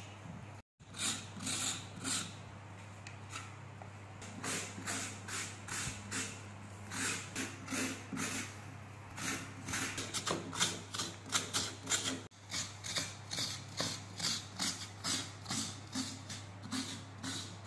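Hand coconut scraper, a serrated metal blade on a wooden handle, rasping fresh coconut meat out of a half shell in short repeated strokes, about two or three a second, over a steady low hum.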